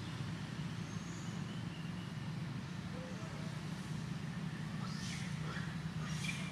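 Steady low hum of a distant engine, with a few faint high chirps in the last couple of seconds.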